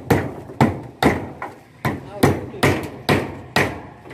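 A hammer driving nails, struck in a steady rhythm of about two blows a second, around nine strikes.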